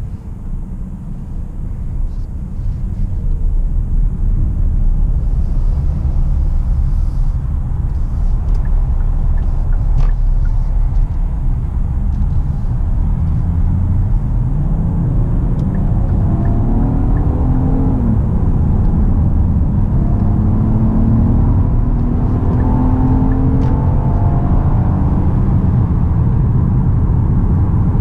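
Hyundai Santa Fe V6 accelerating, heard from inside the cabin: a steady low road and tyre rumble that grows louder over the first few seconds, with the engine note climbing in pitch about halfway through and holding higher near the end.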